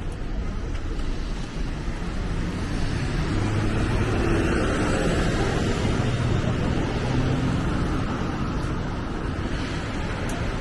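Street noise on a wet city street in the rain, with a vehicle passing whose engine and tyre hiss swell over a few seconds in the middle, then fade.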